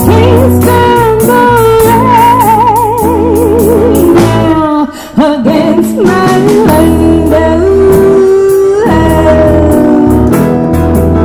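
Live band playing a soul song: a woman sings held notes with wide vibrato over strummed acoustic guitar, bass guitar, keyboard and drum kit, with a brief break in the backing about five seconds in.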